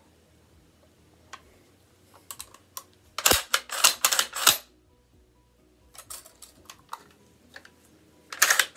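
SKS rifle's action being worked by hand: a quick run of loud, sharp metal clacks about three seconds in as the bolt is pulled back and run forward, lighter clicks around six seconds, and another loud metal clack near the end.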